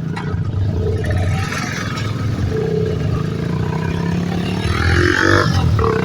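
Royal Enfield motorcycle engine running steadily under way, with a low pulsing beat. A short pitched sound cuts in briefly about five seconds in.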